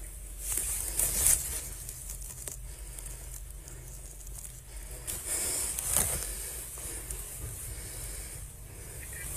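Fabric rustling and brushing against a police body camera's microphone over a steady hiss, with louder brushes about a second in and again around five to six seconds.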